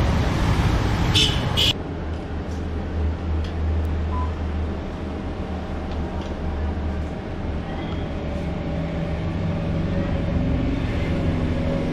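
Street traffic noise that cuts off suddenly about two seconds in and gives way to the steady low hum inside an ATM booth. A single short beep from the ATM comes about four seconds in.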